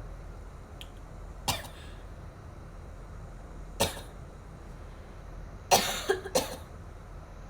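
A girl coughing: a single cough about a second and a half in, another near four seconds, then a quick run of three coughs about six seconds in.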